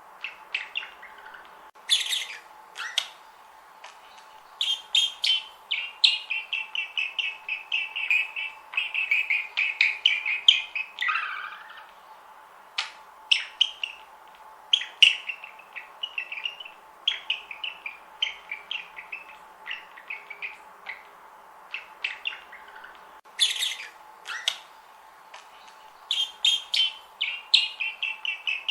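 Pet budgerigars chattering and warbling in runs of rapid chirps, broken by short, sharp single calls and brief pauses.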